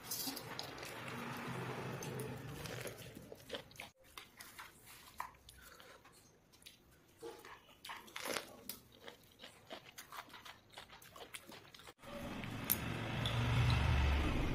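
Eating sounds: food being chewed and crunched, with scattered sharp clicks of hands and food against a steel thali plate. A denser rustling noise fills the first few seconds and comes back louder and deeper near the end.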